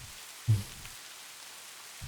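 Steady rain on a surface, a continuous even patter used as background ambience. About half a second in there is one short, low vocal sound.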